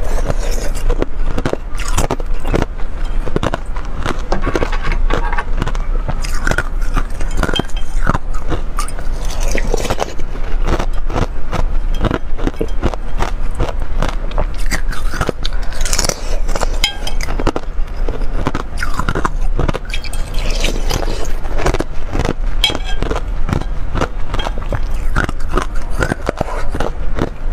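Close-miked biting and crunching of thin sheets of frozen ice, a dense run of sharp cracks and crackles one after another, with a metal spoon now and then scraping ice pieces in a bowl.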